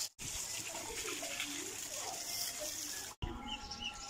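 Water from a garden hose spraying onto a motorcycle, a steady hiss that cuts off abruptly about three seconds in. After that, a faint steady hum and a couple of short chirps.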